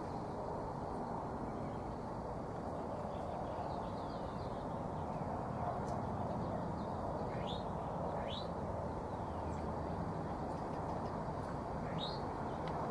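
Steady low outdoor background noise with a few short, quickly rising bird chirps, two close together past the middle and one more near the end.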